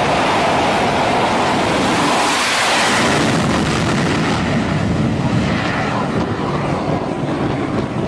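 F/A-18 Hornet fighter jet's engines at full power in afterburner during a catapult launch from an aircraft carrier deck: a loud, steady rush of jet noise that eases a little in the last few seconds as the jet climbs away.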